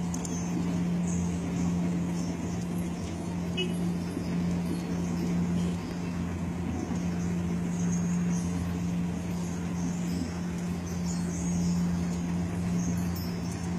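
A steady, unchanging low hum over a background of outdoor noise.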